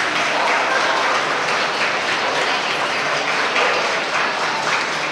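Crowd applauding steadily: many hands clapping together.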